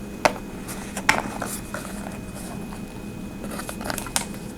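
A small flashlight-kit carrying case being opened and its contents handled: scattered sharp clicks and short rustles, the sharpest near the start, about a second in and around four seconds.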